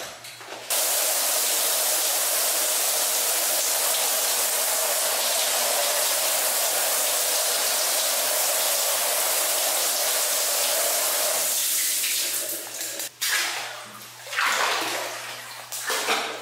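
Overhead rain shower spray running steadily on a person, starting about a second in. Past the two-thirds mark the steady rush turns uneven, with splashes and breaks in the water sound.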